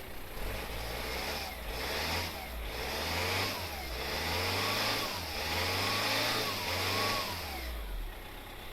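VW 2.0 TDI diesel engine (BKP) revved up and down several times, with a loud hiss from its failed turbocharger. The turbo is worn out and has used all of the engine oil. The revs and the hiss fall away near the end.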